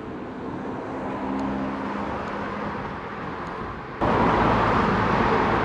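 Street traffic and rushing air heard from a camera on a moving bicycle, with a faint low engine hum from a passing car in the first half. About four seconds in the sound jumps suddenly louder into a steady rush of wind and road noise.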